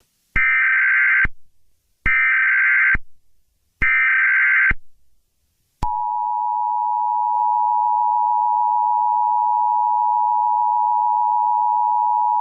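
Emergency Alert System broadcast tones. Three short, harsh data-burst screeches come first, about a second each with pauses between: the SAME header. About six seconds in, the steady two-note EAS attention tone starts and holds.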